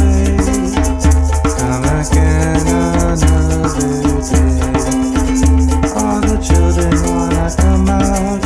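Instrumental music with a shaker rattling on a quick, steady beat over repeating bass notes.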